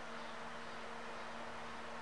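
Steady hiss with a faint low hum underneath: background room tone.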